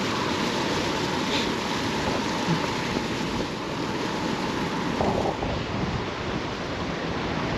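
Strong gusting wind buffeting the microphone: a steady, heavy rushing noise. A faint steady hum sits underneath it and stops about five seconds in.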